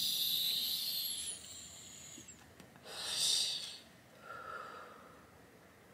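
A long drag on a vape pen: an airy inhale with a thin high whistle for about a second and a half, then a breathy exhale about three seconds in.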